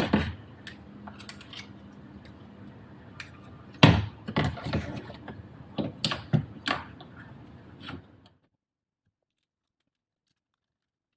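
Clicks, knocks and light rattles of shifter parts and cables being handled and fitted by hand, with a cluster about four seconds in and more around six to seven seconds; the sound cuts out to dead silence about eight seconds in.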